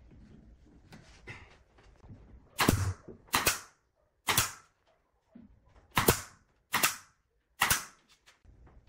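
Pneumatic nail gun firing six times, each shot a sharp crack as it drives a nail into wood, spaced about a second apart.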